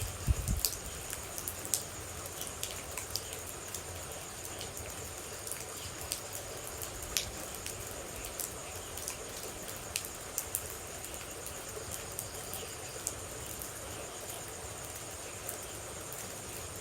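Steady rain with water droplets falling in scattered, irregular sharp drips, over a constant high-pitched hum.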